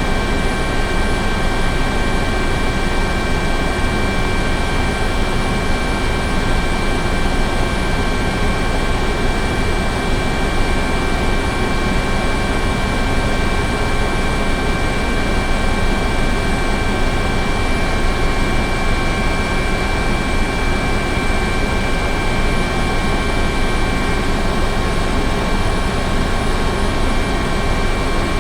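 Helicopter running steadily: a constant high engine whine over dense rotor and engine noise, holding an even level throughout.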